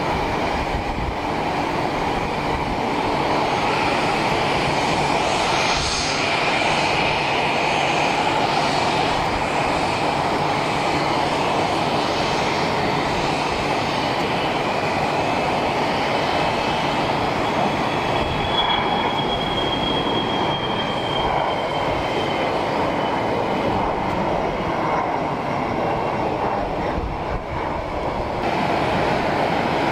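Jet aircraft engines running with a steady roar and a high whine that falls slowly in pitch a little past halfway through.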